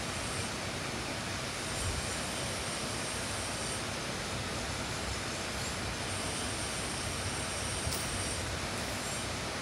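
Steady, even rushing noise with no distinct events, and a faint thin high tone that comes and goes twice.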